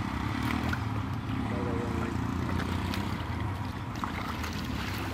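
A steady low motor drone, with light splashing as a fishing net is dragged by hand through shallow, muddy pond water.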